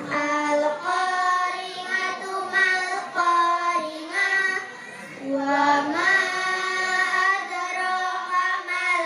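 Young girls reciting a short surah of the Quran in a melodic, sung chant, holding long notes, with a short pause for breath about halfway through.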